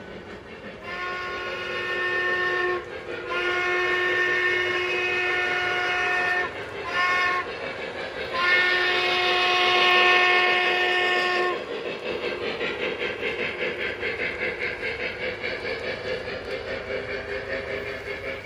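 Sound system of a Lionel Legacy brass hybrid 4-4-0 model steam locomotive blowing its steam whistle in the long-long-short-long grade-crossing pattern, the last blast the loudest. After that the locomotive keeps running with steady rhythmic chuffing, about two to three beats a second.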